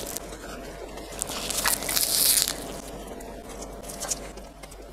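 Close-up bites and chewing of an onigiri rice ball wrapped in nori seaweed, with a crackly crunch from about a second in to two and a half seconds in and a few small clicks later.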